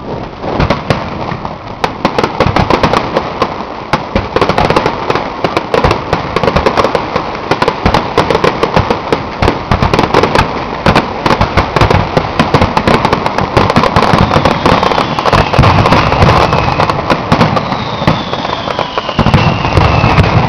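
Aerial fireworks display: a dense, unbroken barrage of shell bursts, bangs and crackles, with a couple of falling whistles in the second half.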